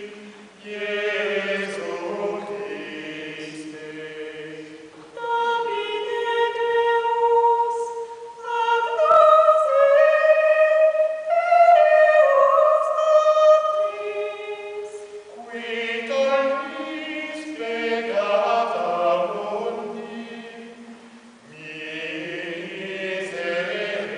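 Small mixed vocal ensemble singing Gregorian chant a cappella. For the middle stretch only the higher voices sing; the low voices are there at the start and come back in for the last part.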